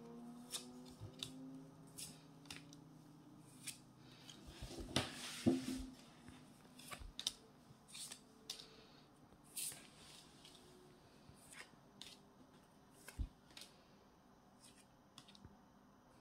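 Trading cards handled in the hands: faint irregular clicks and light scrapes as the cards are slid off one another, with a louder rustle of the cards about five seconds in.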